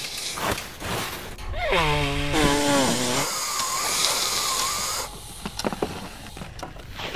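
A cartoon voice sighs, sliding down in pitch, then comes a long wheezing hiss of breath through a blocked nose with a faint wavering whistle in it. A few faint clicks follow near the end.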